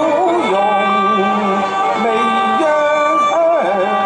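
Cantonese opera song performed live: a singer's long held notes, sliding between pitches, over instrumental accompaniment.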